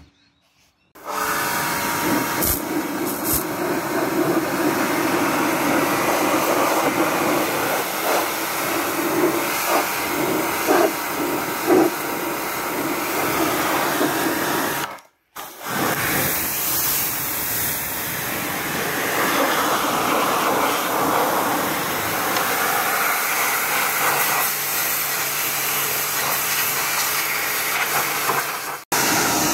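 Kärcher K2 electric pressure washer, switched on about a second in and running steadily: the motor and pump drone under the hiss of the water jet blasting a computer's sheet-metal case. The noise stops for about half a second halfway through, then carries on.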